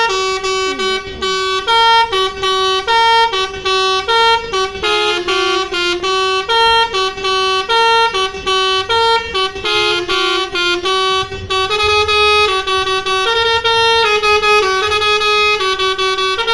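Indonesian bus 'telolet' multi-tone musical horn playing a fast tune of short notes, hopping between a few pitches in a repeating pattern.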